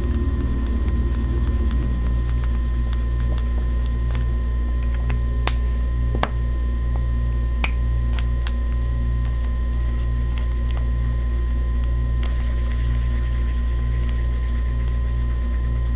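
Steady low electrical hum, with a few light clicks and taps about five to nine seconds in as felt-tip markers are uncapped, swapped and set down on paper.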